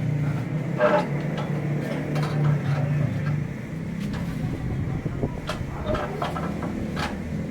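A motor or engine hums steadily, weakening about halfway through, under scattered knocks and clicks of work.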